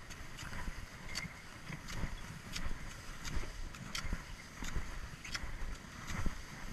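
Cross-country skis sliding over snow while ski poles plant in a steady rhythm, a sharp click or crunch of a pole tip roughly once every three-quarters of a second.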